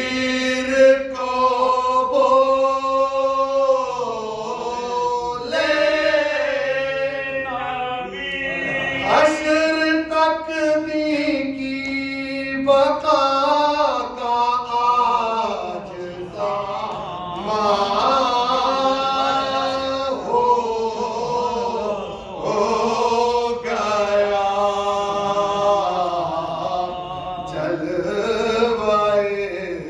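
Unaccompanied men's voices chanting an Urdu devotional poem: a lead singer joined by other men's voices, in long held notes that bend and slide in pitch, with short breaks for breath between phrases.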